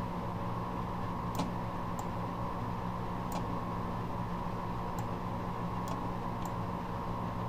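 About six light computer-mouse clicks, irregularly spaced, over a steady low electrical hum with a faint steady tone above it.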